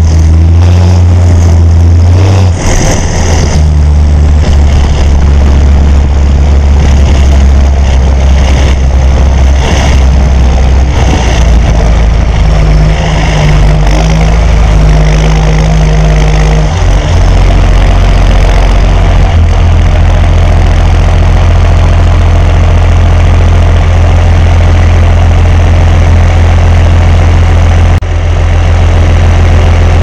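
John Deere 6920 tractor's six-cylinder diesel engine running loud and steady while the tractor drives, its note shifting a few times as the engine speed changes.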